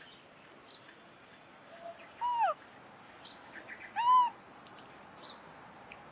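Baby macaque monkey giving two short, high calls about two seconds apart, the first falling in pitch and the second arched, with faint chirps between.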